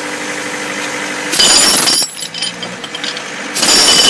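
Pneumatic jackhammer breaking concrete in two loud bursts, the first about a second and a half in and lasting about half a second, the second starting about three and a half seconds in. Between and before the bursts, an engine runs steadily underneath.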